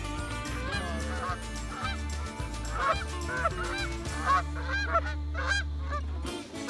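Flock of Canada geese honking, many short calls overlapping, over a steady low hum that cuts off near the end.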